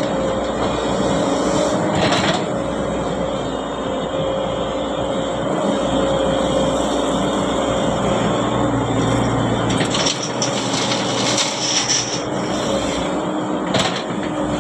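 Heavy diesel engine running steadily, with a few sharp metallic clanks from the machinery.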